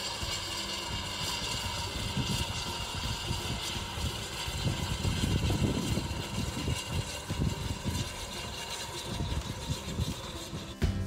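Small steam tank locomotive working past with a train of vintage carriages: uneven low chuffing and train rumble, loudest about halfway through.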